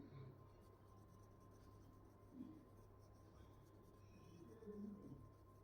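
Near silence: a faint steady electrical hum, with a few faint, brief scratches of a brush scrubbing the phone's circuit board with isopropyl alcohol.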